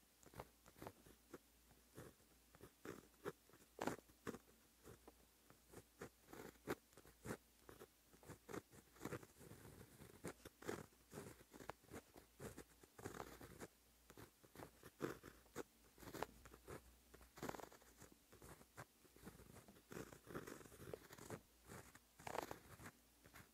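White-ink pen writing on black paper: quiet, close-miked scratches of the pen tip as it forms Japanese characters in short strokes, several a second with brief pauses between.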